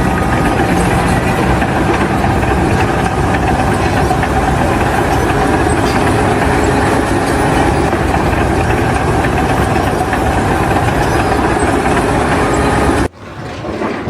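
Loud, steady engine or heavy machinery noise that cuts off suddenly about a second before the end.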